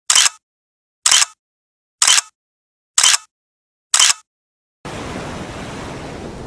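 Camera-shutter click sound effects, five in a row about a second apart with dead silence between, then the steady wash of ocean surf from near the end.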